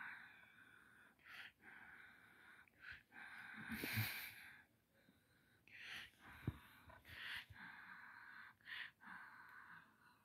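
Faint breathy hissing close to the phone's microphone, a person breathing or blowing in stretches of about a second with short pauses, and a couple of soft knocks from the phone being handled.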